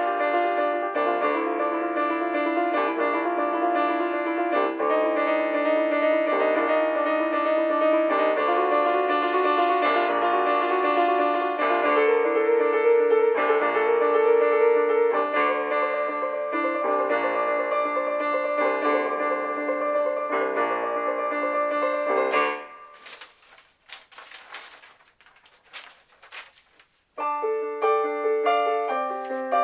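Solo piano composition played back from notation software, in repeated block chords struck about once a second. About three quarters of the way through it stops for a few seconds of near silence, then starts again.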